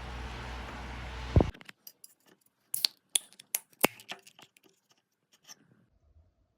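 A steady rushing noise that stops abruptly with a loud click about a second and a half in, followed by a scattered run of sharp clicks and light taps, the loudest a few around the middle, then quiet.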